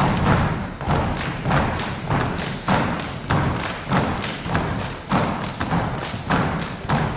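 A children's violin ensemble beating out a steady rhythm of percussive thumps, a bit under two a second, with no bowed melody or held notes.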